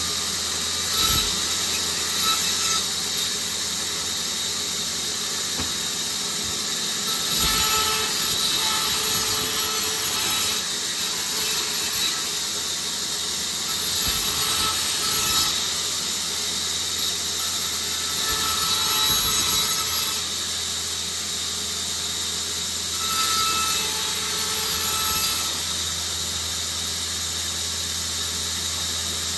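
Band saw running steadily while its blade rips a thin tree branch lengthwise. The cutting noise swells in about five stretches of a few seconds each over the saw's steady hum.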